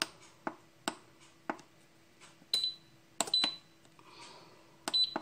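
Buttons being pressed on a multicooker-pressure cooker's control panel: several sharp clicks, then three short high beeps from the cooker as the programme selection registers.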